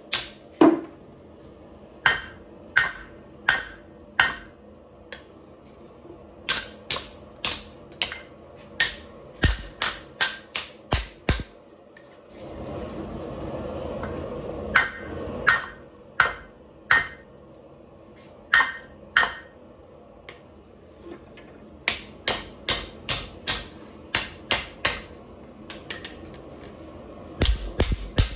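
Hand hammer forging a bend into a hot 5160 steel bar: sharp, ringing metal-on-metal strikes in irregular runs, roughly one or two a second. A steady rushing noise comes in for a couple of seconds near the middle, with no strikes during it.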